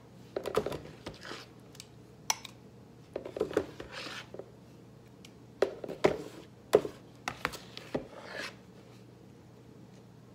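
Metal ladle scooping and scraping mashed strawberries in a dishpan and knocking against a glass measuring cup: a string of irregular scrapes, wet scoops and clinks that stop about a second before the end.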